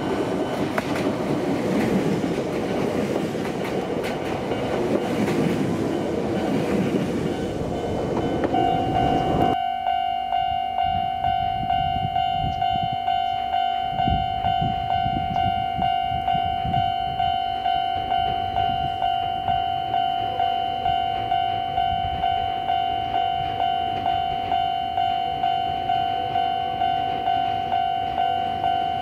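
A train running past with rumble and wheel clatter, which stops abruptly about nine seconds in. Then a Japanese level crossing warning bell rings, a steady electronic ding repeating about twice a second.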